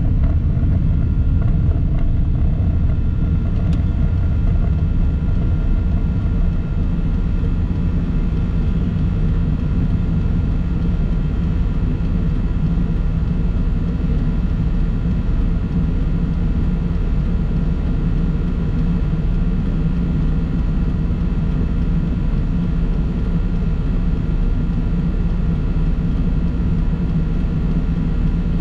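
Steady low rumble of a vehicle driving along a road: engine and road noise, with a few faint steady high tones above it.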